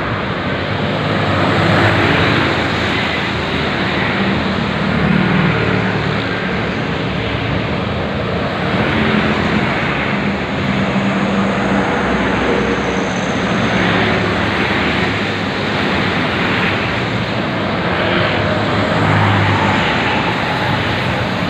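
Steady road and wind noise of a moving vehicle, with a low engine hum beneath.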